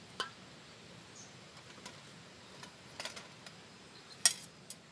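Camping cook gear handled and set down in dry grass: a few light clicks, then one sharp clack about four seconds in as a camping cook pot is put down beside a gas canister, and a smaller click just after.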